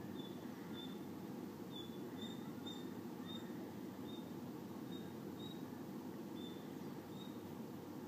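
Short high-pitched chirps from a small animal, repeating irregularly about twice a second, over a steady low rumble of outdoor background noise.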